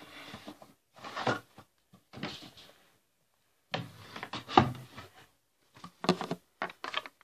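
Irregular knocks, scrapes and rustling close to a tablet's microphone, in several short bursts with a silent gap about halfway through.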